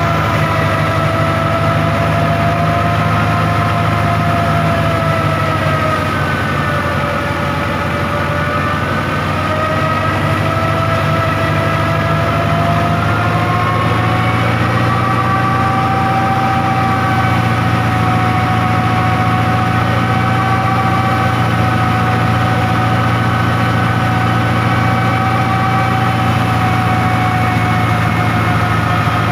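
NH Dabung tractor engine running steadily while it drives a belt-driven wheat thresher, a low hum with a high whine from the spinning thresher on top. The whine sags in pitch about six seconds in and climbs back a few seconds later.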